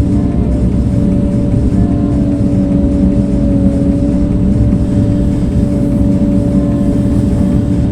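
Engine of a blade-equipped earthmoving machine running steadily, with a steady hum held at an even pitch.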